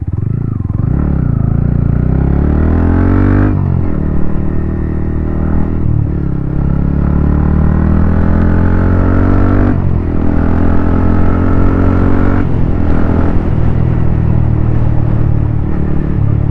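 Yamaha MT-15's 155cc single-cylinder engine through a titanium Akrapovic exhaust, accelerating up through the gears. The engine note climbs, drops back at each of four upshifts, and holds steadier near the end.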